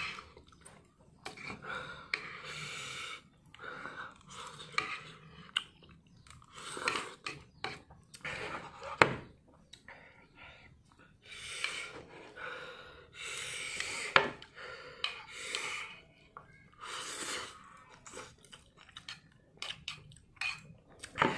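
A person eating very spicy instant noodles: chewing and slurping, with repeated short hissing breaths through the mouth against the chili heat. A couple of sharp clicks of the chopsticks against the plate.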